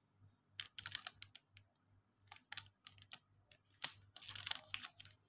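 Plastic packaging crinkling and crackling as it is handled, in three short spells of sharp crackles, from a screen cleaning kit packet and a USB LED light's plastic sleeve.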